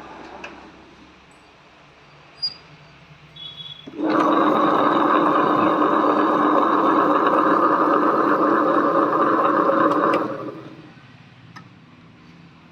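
Small table-top stone wet grinder running: a loud, steady grinding rumble that comes in abruptly about four seconds in, holds for about six seconds, then winds down over about a second as it stops.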